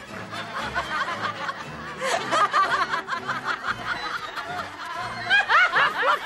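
Several voices laughing and snickering, the sheep's voices, with louder bouts about two seconds in and near the end, over background music with low held notes.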